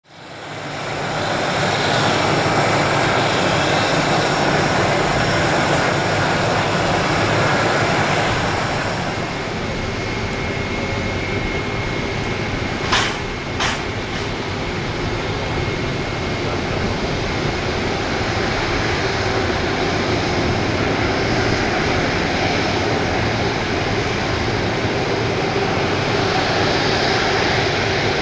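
Airbus A330-300 airliner's jet engines running at taxi power as it taxis past: a steady rumble and hiss with a thin whine in the middle. Two short, sharp sounds come about halfway through.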